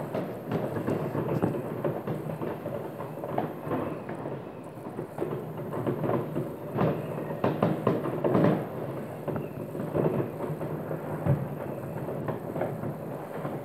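Many distant fireworks going off together: a continuous rumble of overlapping bangs and crackling, with a thicker run of louder bangs about seven to nine seconds in.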